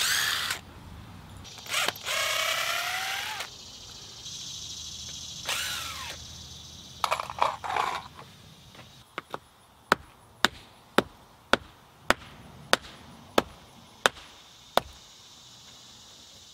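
Cordless drill whirring in short bursts as screws are driven out of the wooden concrete-form boards, its pitch rising as it speeds up. Then a hammer knocks at the form stakes, about ten sharp blows a little under two a second, over a steady chorus of insects.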